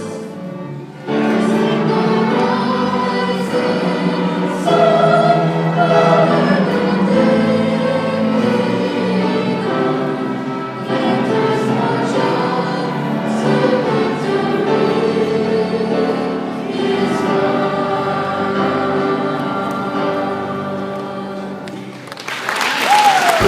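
A choir singing, in several held and gliding voice parts, until about 22 seconds in. Then loud applause breaks out.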